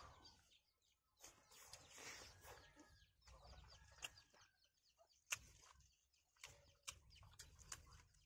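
Faint eating sounds: two people chewing and smacking their lips over meat curry and rice eaten by hand, with short sharp irregular mouth clicks. Chickens cluck faintly in the background.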